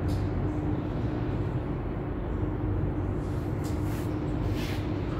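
Steady low machinery drone with a constant hum tone, and a couple of faint brief clicks near the end.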